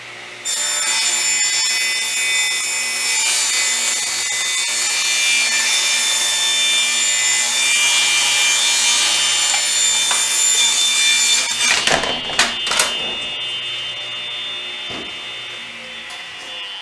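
Ridgid R4520 10-inch table saw cutting wood: a loud, steady blade-and-motor whine with cutting noise that starts suddenly about half a second in and lasts about eleven seconds. A few sharp knocks follow as the cut ends, and the saw then keeps spinning, slowly getting quieter.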